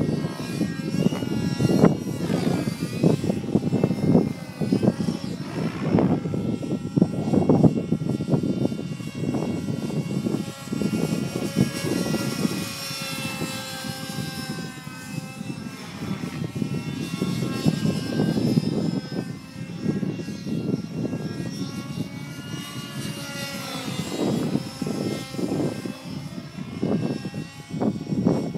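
Glow-fuel model helicopter engine running in flight, its whine rising and falling in pitch as the throttle changes, over a choppy low rushing sound.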